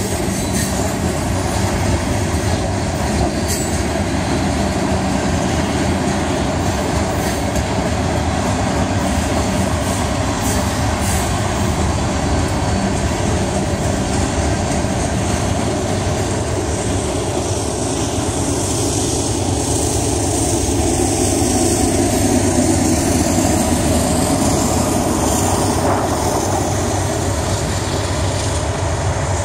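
Loaded Union Pacific freight train of covered hopper cars rolling past on the main line: a steady rumble of steel wheels on rail with clickety-clack over the rail joints and some wheel squeal. In the second half the rear-end diesel locomotive, pushing as distributed power, goes by and the sound grows a little louder.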